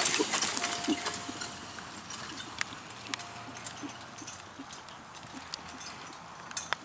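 Horse trotting past while pulling a four-wheeled driving carriage, its hooves clip-clopping. The sound is loudest as it passes close and fades as it moves away.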